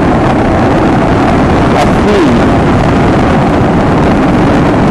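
Royal Enfield Himalayan's 411 cc single-cylinder engine running steadily under way, mixed with wind buffeting the handlebar-mounted microphone.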